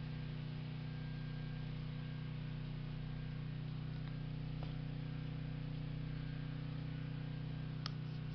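A steady low hum that does not change, with a couple of faint clicks about halfway through and near the end.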